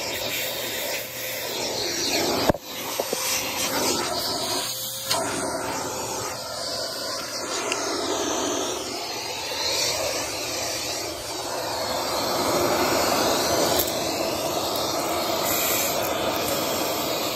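Vacuum cleaner running with a hose nozzle pushed over carpet, sucking up crumbs and debris; the air rush changes as the nozzle moves and presses on the carpet. A sharp click about two and a half seconds in.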